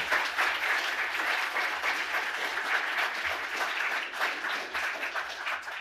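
Audience applauding: steady, dense clapping that cuts off abruptly at the end.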